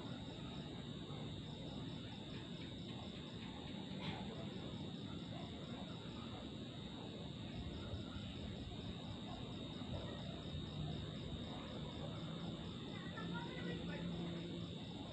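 Crickets trilling steadily in a night-time insect chorus: one continuous high trill with a fast, evenly pulsing chirp just above it, over a low, steady background rumble.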